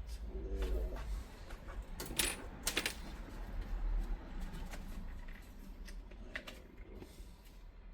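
Small metal pieces clinking against each other or a hard work surface: a few sharp, ringing clinks about two and three seconds in, with lighter clicks afterwards.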